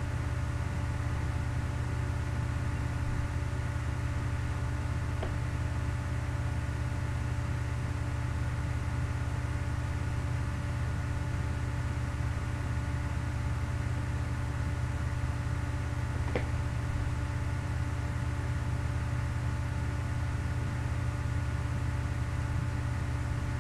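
A steady low hum with a faint whine of several held tones above it, unchanging. Two faint clicks sound through it, about five seconds in and about sixteen seconds in.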